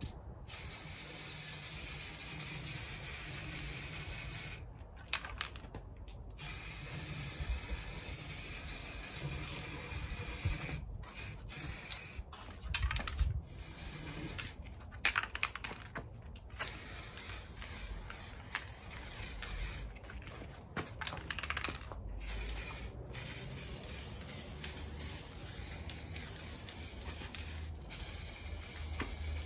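Aerosol spray-paint can spraying in a steady hiss, broken into repeated bursts by short pauses, with a few sharp clicks partway through.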